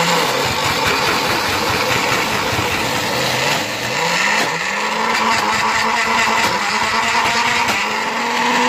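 Countertop blender running, grinding fresh chhana curds into cheese cream. The motor's pitch dips and wavers at first, then climbs and holds steady about four and a half seconds in.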